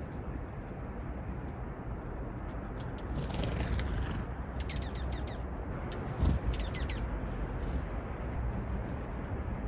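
Juncos giving rapid, high-pitched chirps that sound like laser beams, in two bursts about three seconds apart, over a steady low rumble.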